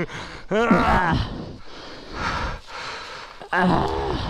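Speech only: two short, unclear spoken exclamations from the riders, one about half a second in and one near the end.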